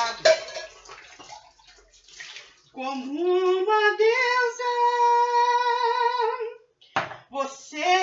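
A woman singing: she slides up into one long held note of about four seconds over water running into a kitchen sink as dishes are washed. A sharp knock comes near the end.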